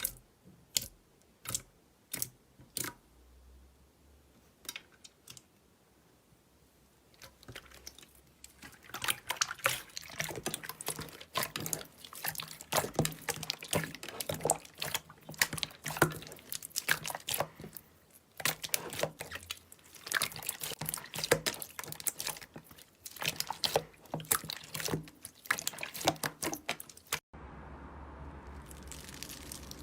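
Slime being handled, with wet clicks and pops. For the first several seconds they come one at a time, then turn into dense, continuous crackling. Near the end it cuts abruptly to a steady low hum.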